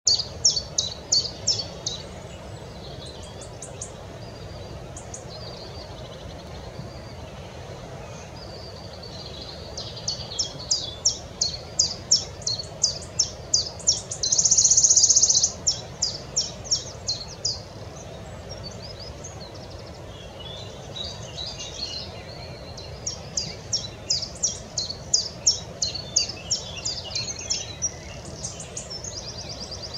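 Wood warbler singing: runs of sharp, high ticking notes that speed up into a loud shivering trill, repeated several times. A steady low background noise runs underneath.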